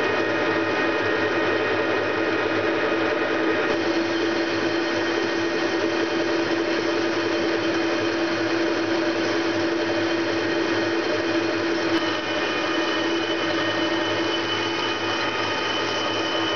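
Metal lathe running while its tool cuts across the face of a four-jaw chuck backplate, a steady machine hum with a held tone. The sound shifts slightly about twelve seconds in.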